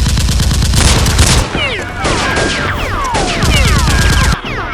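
Rapid automatic gunfire sound effects in two long bursts, with quick descending whistles between them.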